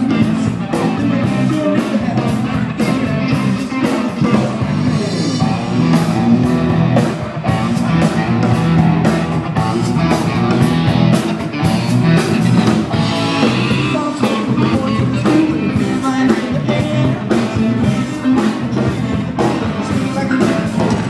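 Live rock-and-roll band playing: guitar and a singer over a steady beat.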